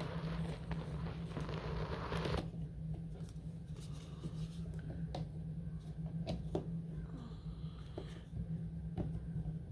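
Power cords and plugs being handled and pushed into a power strip: about two seconds of rustling, then scattered light clicks and knocks.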